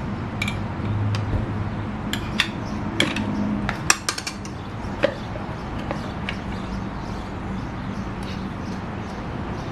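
Light metallic clinks and clatter of metal parts and tools being handled, most of them about two to five seconds in, over a steady low hum.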